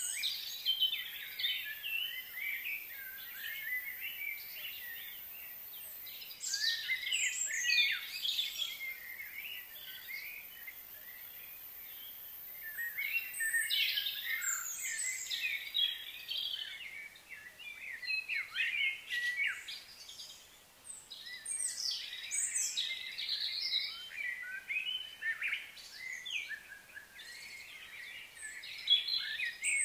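Birds chirping and singing in bursts of quick, overlapping high notes, with short lulls between the bursts.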